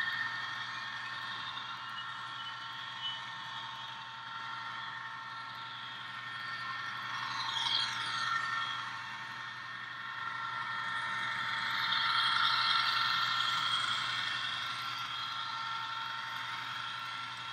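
HO scale model diesel locomotive's onboard sound decoder playing a running diesel engine through a small speaker, as a steady engine sound. It swells louder for a couple of seconds about twelve seconds in.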